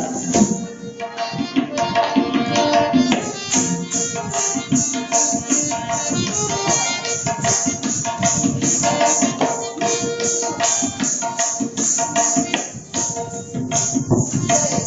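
Tabla playing the 16-beat teentaal cycle under a repeating held melodic line, with the jingle of the dancers' ankle bells (ghungroo) from Kathak footwork in quick, even strokes.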